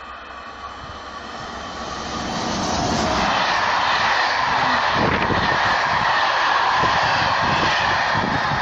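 Intercités passenger train of Corail coaches hauled by a BB 22200-class electric locomotive, approaching and passing at speed. The rush of noise grows until about three seconds in, then stays loud as the coaches go by with a rhythmic clatter of wheels.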